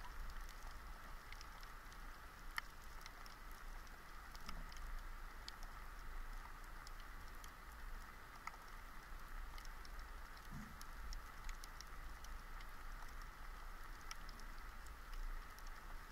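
Faint underwater ambience picked up by an action camera in its waterproof housing: a steady hiss with scattered small clicks and crackles.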